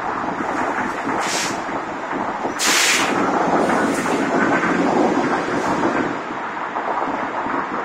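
A CNG-powered Designline commuter coach running close by as it moves off, its engine rumbling steadily. Two sharp air hisses come about a second in and about two and a half seconds in, the second longer and louder, and after it the engine grows louder for a few seconds.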